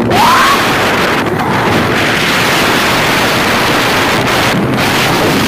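Wind rushing over the microphone of a phone carried on a moving motorcycle, a steady dense rush, with a brief rising tone just after the start.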